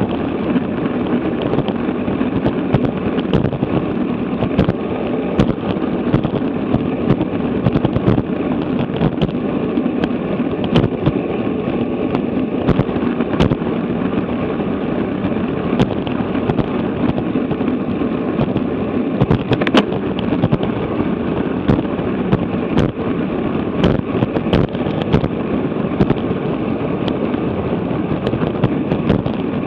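Wind rushing over an action camera's microphone on a bicycle moving at about 22 mph, with frequent sharp clicks and knocks scattered through it.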